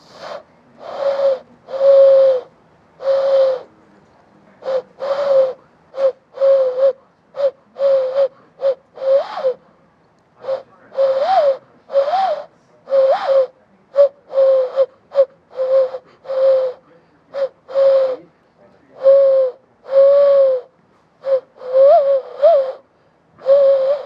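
Hand whistle: a person blowing into cupped hands, making a bird call. It is a long run of breathy hooting notes near one pitch, some short and some held, a few bending up and back down.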